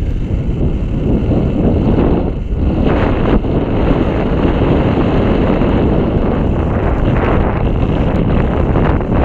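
Strong wind buffeting the microphone: a loud, low rumble that rises and falls in gusts, with a brief lull about two and a half seconds in.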